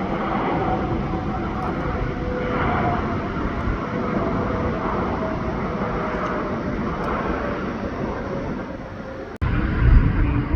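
Jet airliner engines running, a steady noise with a faint whining tone in it. About nine seconds in the sound cuts out for an instant, then comes back as a louder low rumble.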